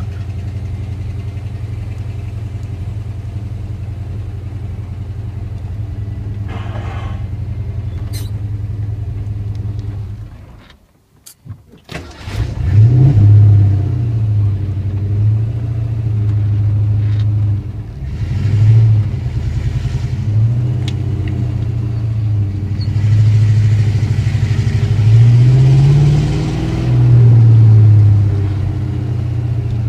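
1988 Ford Mustang GT's 5.0-litre V8 idling steadily, a rough idle the owner puts down to moisture corrosion in the distributor, cap and rotor. After a brief break in the sound about a third of the way in, the engine runs louder, its pitch rising and falling several times as it revs up and settles again.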